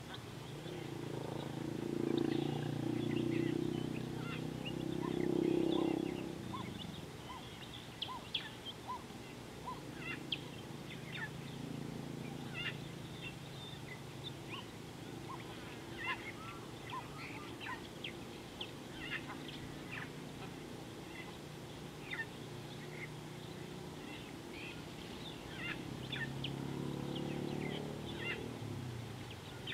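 A guineafowl flock calling with many short, scattered chirps. Under them a low hum swells for the first several seconds and again near the end.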